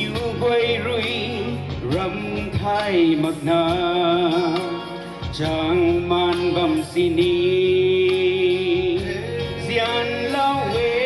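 A man singing solo into a microphone over backing music, holding long notes with a slight waver.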